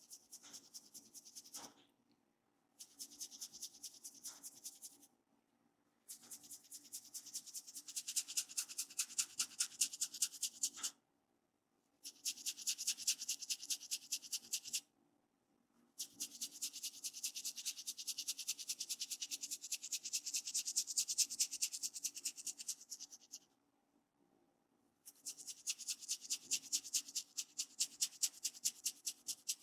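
Fingertips rubbing and scratching briskly through oiled hair on a scalp: rapid scratchy strokes, several a second, in runs of a few seconds with short pauses between.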